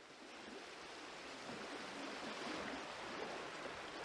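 Steady hiss of wind and small waves rippling and lapping against a pond bank, fading in over the first second.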